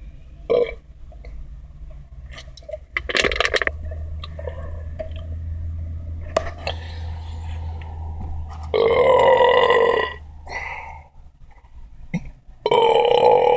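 A man belching loudly, with two long, drawn-out belches about nine and thirteen seconds in and smaller ones between. A brief sharp noise comes about three seconds in.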